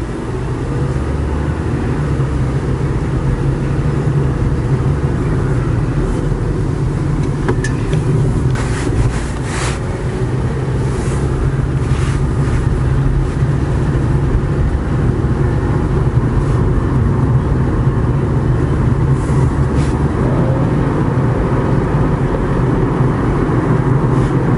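Opel Corsa D with a warmed-up 1.4-litre A14XER engine driving along: a steady low engine and road drone that slowly gets louder, with a few faint clicks around the middle.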